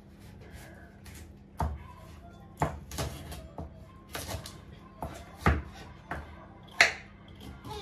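Kitchen knife cutting carrots into coarse chunks on a wooden cutting board: a run of irregular knocks, about eight cuts, each with a dull thump of the blade meeting the board.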